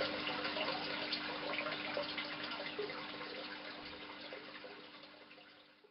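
Aquarium water trickling and bubbling, with a steady low hum under it; the sound fades out over the last three seconds.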